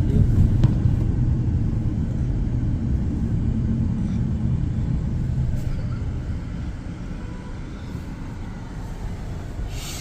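Car road and engine noise heard from inside the moving car: a steady low rumble that eases off about six seconds in.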